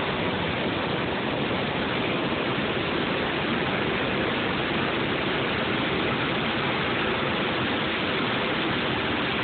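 Whitewater rushing through a rocky gorge below a dam: a steady, unbroken rush of water.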